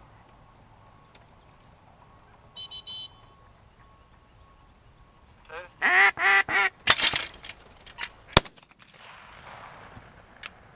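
A live duck quacking loudly in a quick run of five or six calls, followed by sharp cracks and a single loudest shotgun blast about two seconds later as the flier is shot.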